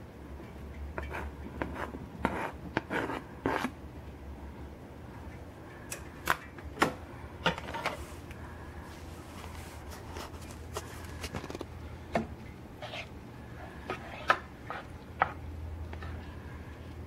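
Kitchen utensils knocking, tapping and scraping against cookware, heard as scattered sharp clicks and short scrapes over a steady low hum.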